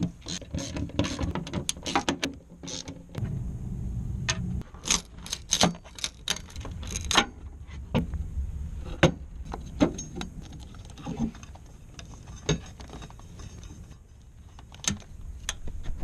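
Irregular sharp metallic clicks and clinks, a dozen or more with uneven gaps, over a faint low rumble: hand tools, fasteners and trim being handled while the interior is taken apart.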